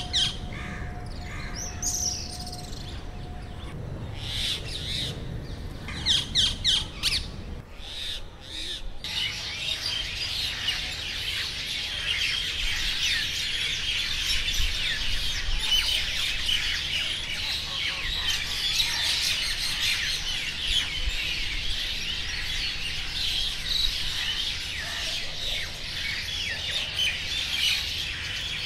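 Rose-ringed parakeets squawking a few times in the first several seconds, then from about nine seconds on a dense chorus of many birds chirping steadily.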